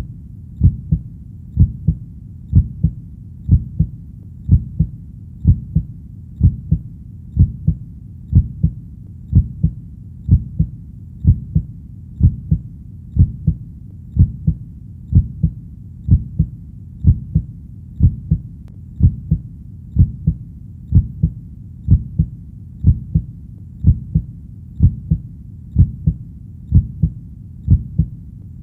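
Heartbeat sound, a steady lub-dub double thump at about one beat a second, low-pitched and even.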